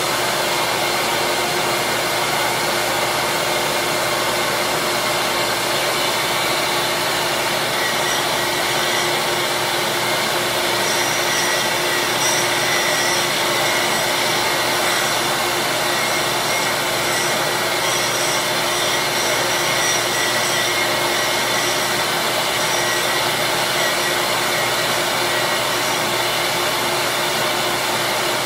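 Small electric disc sander running steadily, a constant motor hum and whine over a hiss, as small plastic curling-shoe slider pieces are held against the sanding disc to shape them.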